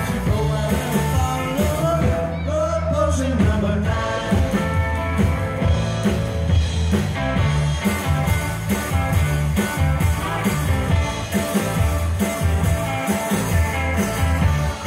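Live rock band playing: electric guitars, bass guitar and drums with a steady beat.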